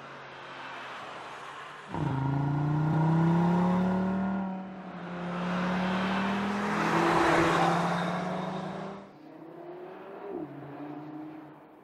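Audi RS 3's turbocharged 2.5-litre five-cylinder engine accelerating hard, its pitch rising and dropping at upshifts. It is loudest in the middle, with added road and wind rush as the car comes close, then fainter.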